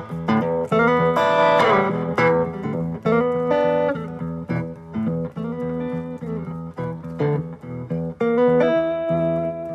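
Guitar music: a run of plucked notes, some bending in pitch, over a steady low note.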